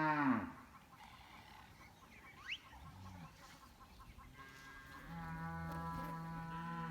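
Cattle mooing on a farm: one moo dies away about half a second in, and another long, steady moo starts about four seconds in. A couple of short rising bird chirps come in between.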